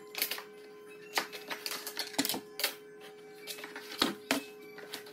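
Laminate flooring planks being handled and marked with a speed square for cutting: an irregular run of sharp clicks and clacks as planks knock together and the square is set against them, over a faint steady hum.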